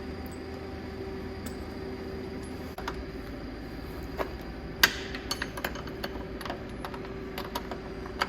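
Scattered metallic clinks and taps of hand tools and metal parts being handled, the loudest about five seconds in, followed by a quick run of lighter clinks, over a steady background hum.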